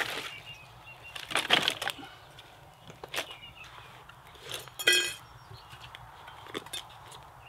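A few knocks and rustling clatters from handling gear, then a short metallic clink about five seconds in from a steel vacuum flask being handled. Birds chirp faintly in the background.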